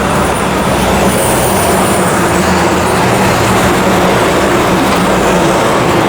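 Steady city street traffic, with a heavy vehicle's engine running close by.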